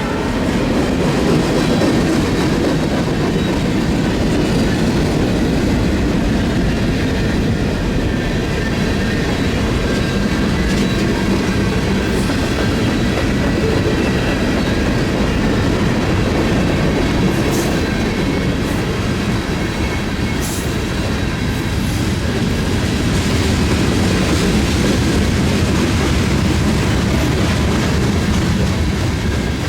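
Freight train rolling past at close range: a steady rumble of the locomotives and cars, with wheels clattering over the rail joints.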